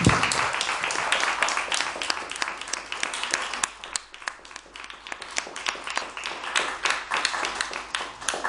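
A small audience applauding, the clapping loudest at first and gradually thinning out and getting quieter toward the end.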